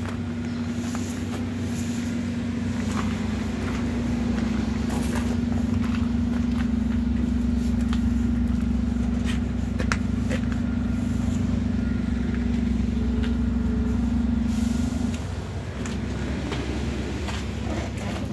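A city bus engine idling nearby: a steady low hum that falls off a little about fifteen seconds in, with scattered clicks and footsteps over it.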